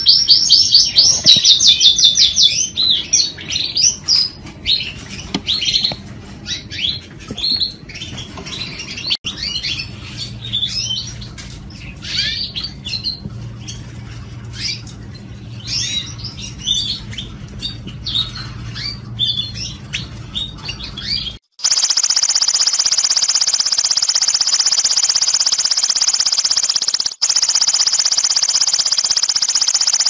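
Parisian frill canary singing: loud, rapid trills at first, then a run of varied chirps and short trills, more quietly. About 21 seconds in the song cuts off and a steady, loud hiss takes over, with one short break near the end.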